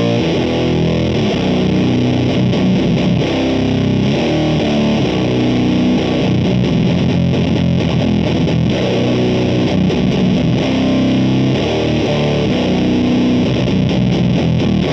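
Electric guitar played through a Does It Doom Elder God fuzz pedal (a silicon Fuzz Face and a Green Russian fuzz in one pedal) into the clean channel of a Mesa/Boogie JP-2C amp. It plays continuous, heavily fuzzed riffs.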